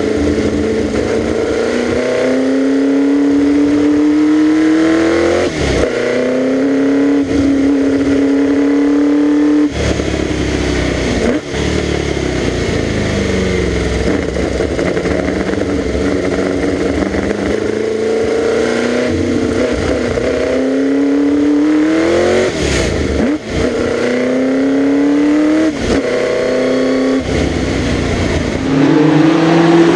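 Serenissima MK168's 3-litre V8 racing engine driven flat out, revving up through the gears: each climb in pitch is broken by a quick upshift. In the middle the revs fall back and hold steadier before the engine pulls hard again.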